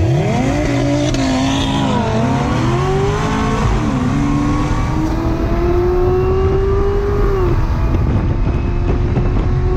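A car's engine at full throttle from a launch, heard from inside the car. Its pitch climbs sharply, drops back at upshifts about two and four seconds in, then rises in one long pull before the throttle is lifted near the end.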